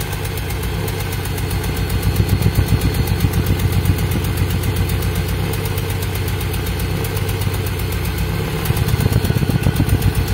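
Toyota Soluna four-cylinder exhaust at the tailpipe, idling with an uneven "blub blub blub" beat: the engine is misfiring (running rough), which the mechanic suspects is caused by faulty spark plug wires. The pulsing grows louder and choppier about two seconds in and again near the end.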